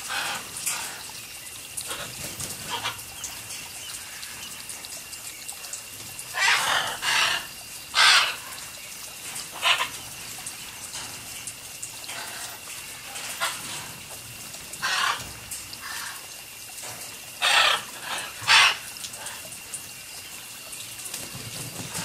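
Macaw giving a string of loud, harsh squawks, a few at a time with pauses of several seconds, over the steady hiss of a fine water spray.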